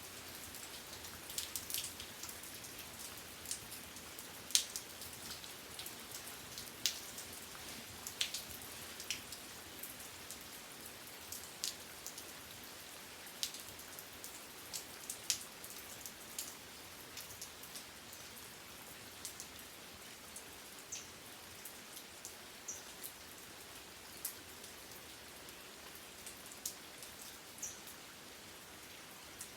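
Steady rain with many separate drops clicking and tapping on a surface, the close drop hits more frequent in the first half, and a few short high pings near the end.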